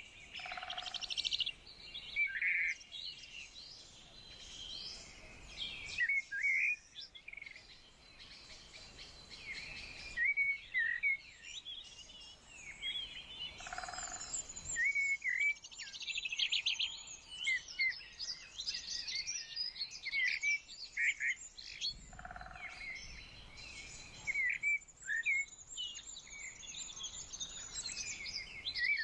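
Songbirds chirping and singing, many short overlapping calls and whistles, with a fast trill that comes back several times.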